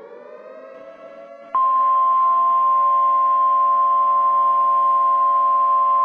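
A siren that has just wound up holds a steady pitch. About one and a half seconds in, a much louder steady high alert tone of an Emergency Alert System broadcast starts over it.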